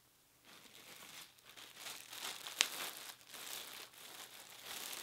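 Packaging crinkling and rustling as items are handled and pulled out of a box, with one sharp click about halfway through.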